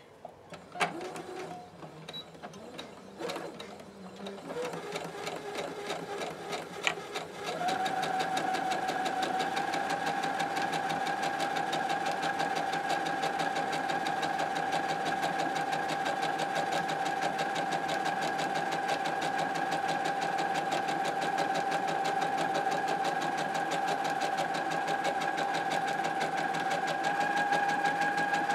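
Electric sewing machine stitching a long straight seam through cotton fabric and batting. A few clicks and soft handling sounds come first; about a quarter of the way in the machine starts running at a steady speed with an even hum, picking up slightly near the end.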